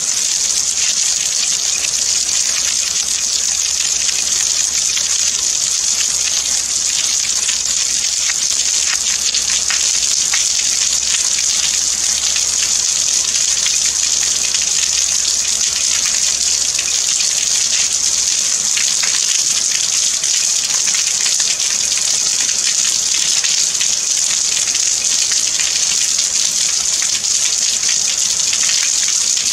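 Steady rain falling: an even, dense hiss of drops that neither builds nor eases.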